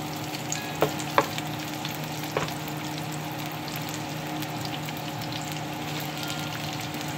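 Chopped bacon and onion frying in fat in a nonstick pan, with a spatula stirring and knocking against the pan three times in the first two and a half seconds.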